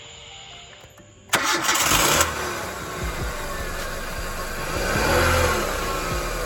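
2009 Kia Rio's four-cylinder engine cranked over by the starter about a second in, catching within a second and settling into a steady run, with a brief rise and fall in engine speed near the end. It is the first start on freshly replaced spark plugs.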